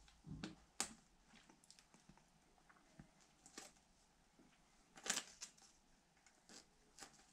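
Faint rustling and light taps of cut-out masking shapes being handled and pressed onto a plastic ATV side panel, with the sharpest rustle about five seconds in.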